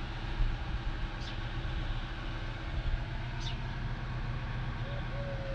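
Valtra T174's 7.4-litre six-cylinder diesel engine idling steadily, with two brief high chirps over it.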